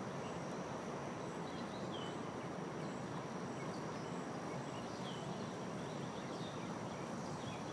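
Outdoor ambience at a pond: a steady background hiss with a thin, steady high tone over it, and a few faint short chirps every few seconds.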